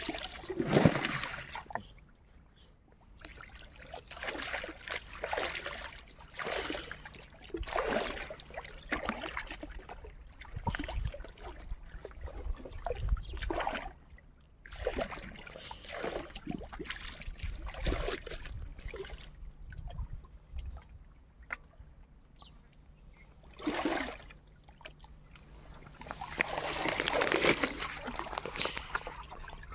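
Long wet cloths being dunked, lifted and swished by hand in shallow pond water: splashing and sloshing in repeated bursts every second or two. Near the end comes a longer, louder stretch as the wet cloth is worked on a flat stone at the water's edge.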